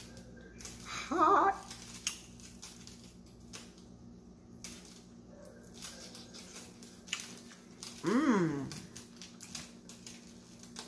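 A person eating a hot, freshly cooked shrimp by hand, with small scattered mouth and handling clicks as she bites and chews. About eight seconds in comes one voiced sound that slides steeply down in pitch. A steady low hum runs underneath.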